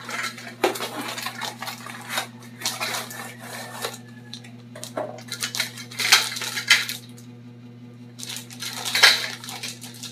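Metal support tubes of a baby high chair's stand clinking and rattling against each other as they are handled, in several bursts of clatter over a steady low hum.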